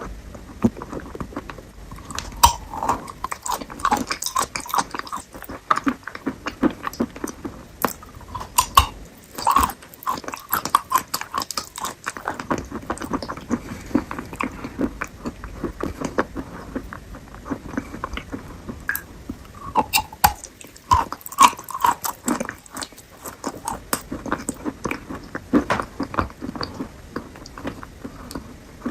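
Close-miked ASMR eating of fruit: repeated bites and chewing, with dense, irregular crisp clicks and crunches throughout.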